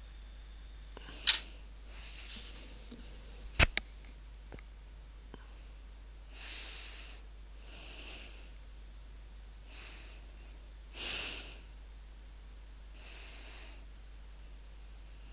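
A person breathing close to the microphone, a soft breath every second or two. There is a sharp click about a second in and a knock just before four seconds.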